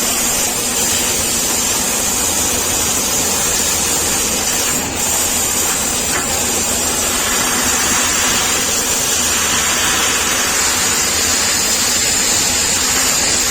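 CNC laser machine running: a steady, loud hiss with a bright high edge, dipping briefly about five seconds in.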